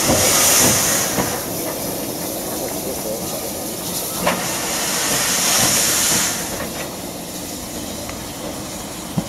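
Robert Stephenson & Hawthorns 0-6-0ST saddle tank steam locomotive pulling away with its cylinder drain cocks open. The drain cocks hiss loudly at the start and again in a second long burst midway, and the sound grows quieter as the engine draws away.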